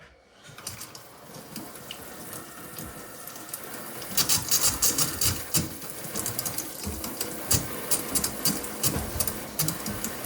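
Pressurised water spraying and spattering from a leaking plumbing fitting. It starts abruptly, builds over the first few seconds, and turns to sharp, irregular splashing from about four seconds in. The fitting is not on tight enough and leaks at its top.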